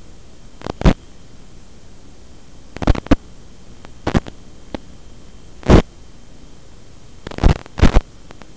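Steady static hiss broken by sudden loud crackling bursts every second or two, from the audio of an analog FPV video link.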